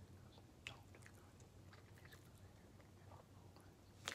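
Near silence, with a few faint, scattered mouth sounds: soft clicks and smacks.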